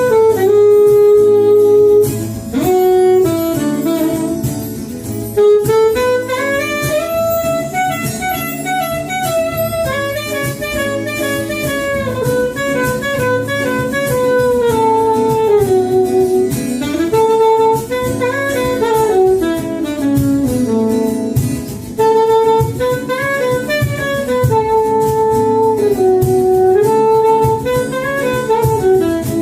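Instrumental break with no singing: a saxophone plays a stepwise melody in phrases over guitar accompaniment.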